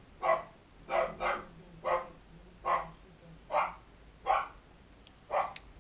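A dog barking repeatedly: about eight short barks at uneven intervals, two of them in quick succession about a second in.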